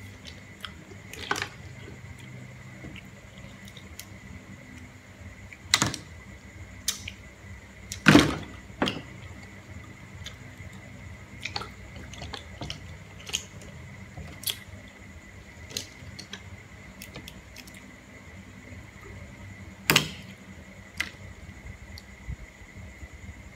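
Boiled green mussel shells clicking and clacking as they are handled and pried open by hand, with scattered sharp clicks, the loudest about eight seconds in, and some wet squishing. A faint steady high whine runs underneath.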